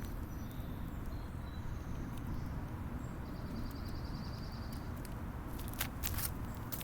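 Outdoor background noise: a steady low rumble with faint high chirps, a short rapid high trill in the middle, and a few sharp clicks near the end.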